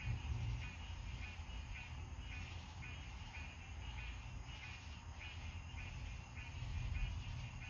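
Low rumble of distant thunder, swelling just after the start and again near the end, under a steady night chorus of calling animals chirping about twice a second.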